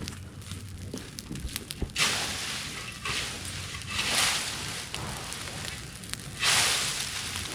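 Bonfire of dry cleared brush crackling, with scattered sharp pops, and three surges of loud rushing hiss.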